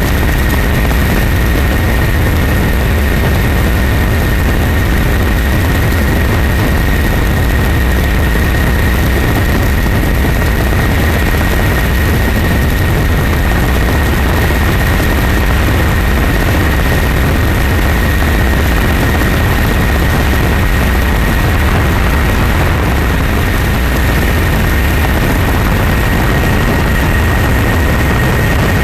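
Loud, steady engine drone with a constant high-pitched whine riding over a deep rumble, unchanging throughout.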